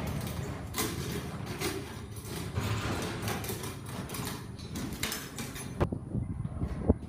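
Young bucking bull bucking on arena dirt: irregular thuds of its hooves with clanks from the steel pens. About six seconds in, the sound changes abruptly to quieter arena background with two sharp knocks.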